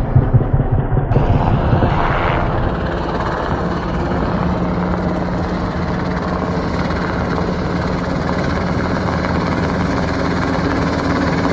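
UH-60 Black Hawk helicopter in flight with a water bucket slung beneath: a pulsing rotor beat for about the first second, then, after a cut, steady rotor and engine noise with a steady low hum.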